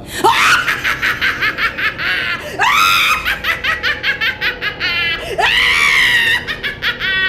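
A woman's high-pitched witch cackle: an evil laugh in three bursts, each opening with a rising squeal and running on into rapid 'ha-ha-ha' pulses.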